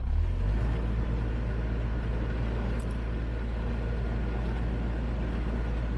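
Narrowboat's diesel engine running hard in reverse: a loud, steady, low drone that comes up suddenly at the start and then holds.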